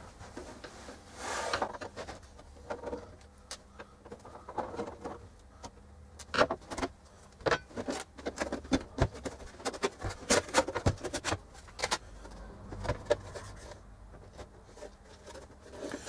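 Handling sounds from a Racal-Dana 1991 universal counter as its outer case is worked off. There is a rub about a second and a half in, then a run of sharp clicks and knocks through the middle as the case is moved and comes away from the chassis.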